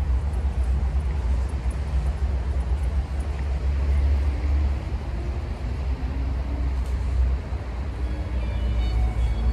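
Steady low rumble of outdoor background noise. A few sustained musical notes come in near the end.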